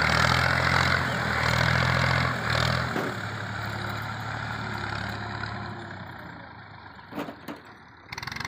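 Massey Ferguson 240 tractor's three-cylinder diesel engine running steadily while it drags a rear levelling blade through loose soil. The engine fades as the tractor pulls away, and two short knocks come near the end.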